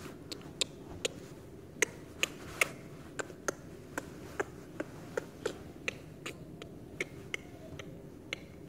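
Irregular light taps and clicks, about two or three a second, the loudest a few seconds in, over faint room noise.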